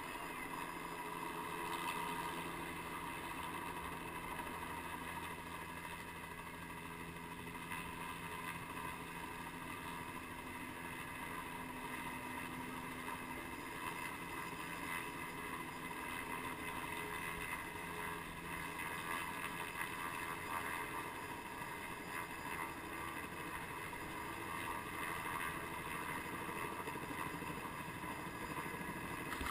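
Dirt bike engines idling, faint and steady, as riders wait at the start line.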